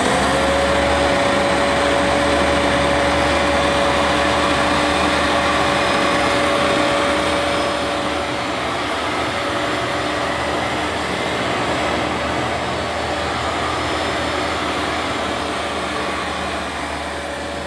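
Vax Platinum Power Max carpet washer running: its motor spins up at the start to a steady whine over a broad rush of air, and the sound drops a little in level about halfway through.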